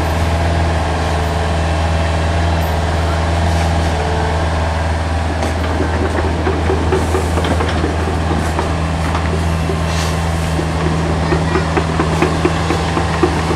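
Hitachi Zaxis 48U mini excavator's diesel engine running steadily with a low hum while the machine digs and lifts a bucket of soil. Irregular light clattering joins in from about six seconds in.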